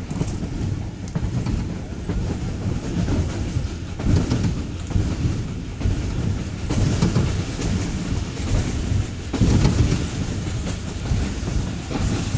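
Passenger train running at speed, heard from inside a carriage at the window: a steady rumble of wheels on the rails with clattering over the rail joints, surging louder every few seconds.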